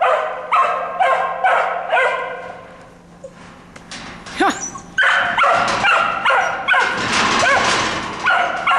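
A dog barking in quick repeated barks, about two a second, with a short lull a few seconds in, then barking again faster with some higher yips.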